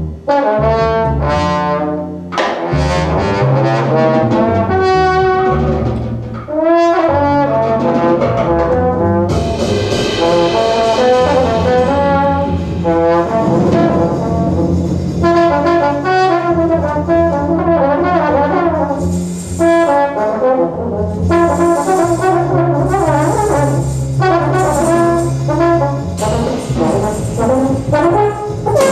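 Live jazz quartet: trombone playing melodic lines over upright double bass and drum kit. The sound fills out in the highs from about nine seconds in as the drums get busier.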